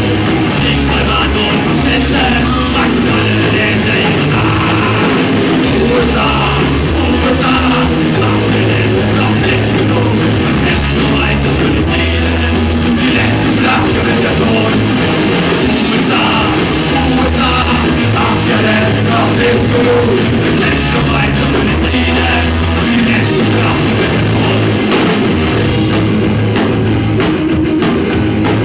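Live rock band playing loud, with electric guitars and a drum kit, and a singer's vocals over them.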